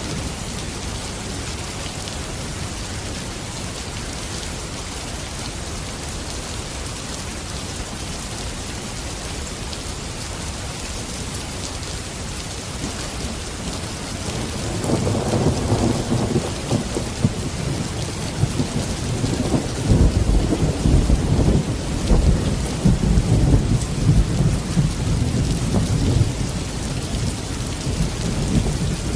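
Steady rain falling, with a long low roll of thunder that builds about halfway through and keeps rumbling to the end.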